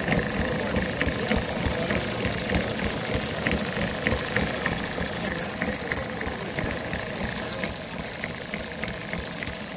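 Small model engine running, with a regular clicking about three times a second over a low rumble.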